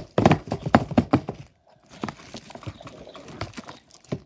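Foil-wrapped chocolate truffles and their wrappers crinkling and clicking as they are handled. A quick run of sharp clicks comes in the first second or so, then fainter rustling.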